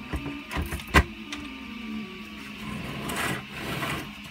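Large 3D-printed plastic ring parts being handled and shifted by hand: a few sharp plastic knocks and clicks in the first second or so, the loudest about a second in, then a scraping rustle of plastic about three seconds in, over a faint steady hum.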